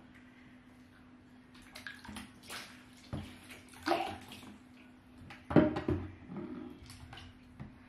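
Water splashing and sloshing in a baby's bath as an infant is washed by hand, in irregular bursts, loudest about four and five and a half seconds in.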